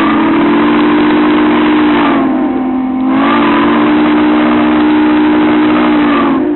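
Steam locomotive whistle blowing one long, loud blast of several notes sounding together as a chord; about two seconds in it eases and sags in pitch for a moment, then sounds full again before cutting off near the end.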